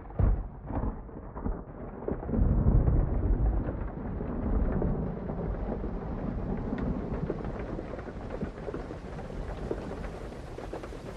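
Rain falling steadily, with a few sharp cracks at the start and a heavy low rumble of thunder a couple of seconds in. The rain grows gradually brighter as it goes on.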